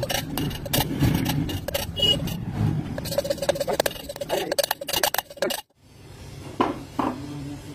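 Rapid, irregular run of sharp knocks and taps from hands-on work on metal parts. It stops abruptly about five and a half seconds in, followed by two lone knocks near the end.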